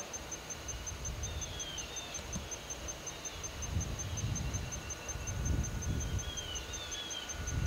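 A high-pitched insect call pulsing steadily about five times a second, with a few short falling bird chirps and a low rumble underneath.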